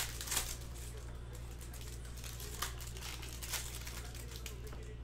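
Foil wrapper of a Topps Chrome baseball card pack crinkling and tearing as it is ripped open by hand, in irregular crackles, over a steady low hum.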